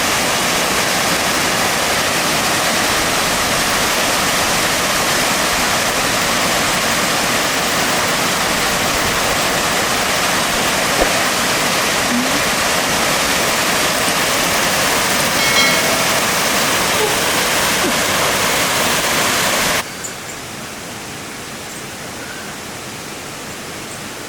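Waterfall: a steady, dense rush of falling water that drops abruptly to a quieter rush about twenty seconds in.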